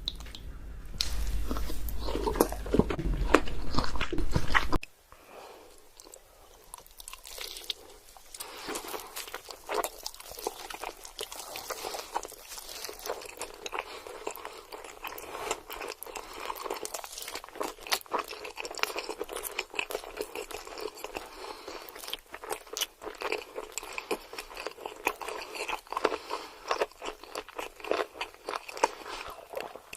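Close-miked eating sounds: a person repeatedly biting into and chewing crunchy food, with many short crackles and crunches. For about the first five seconds a louder sound with a deep low rumble is underneath, and it cuts off suddenly.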